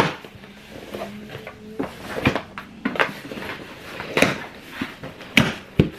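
A cardboard shipping box being opened and handled: cardboard rubbing and scraping, with about five sharp knocks and taps spread through the few seconds.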